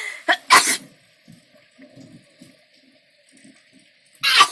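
Rain falling as a faint steady hiss, broken by two loud, short bursts of hissing noise, one about half a second in and one near the end.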